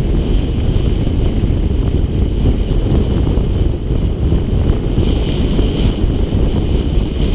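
Wind buffeting the microphone of a mountain bike's action camera at riding speed, a steady heavy low rumble. Underneath it is the faint hiss of tyres rolling over a gravel single-track trail.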